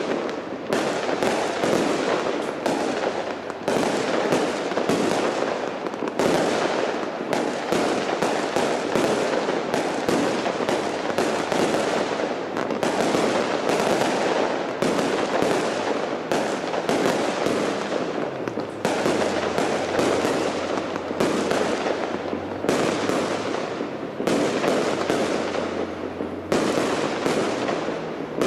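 Large fireworks display: a dense run of bangs and crackling in quick succession, barely letting up, with short lulls every few seconds.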